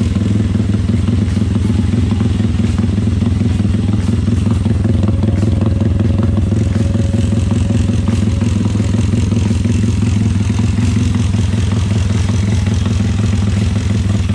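Motorcycle engine running steadily at an even speed through a newly fitted exhaust, run to test the exhaust for leaks; it holds without leaking.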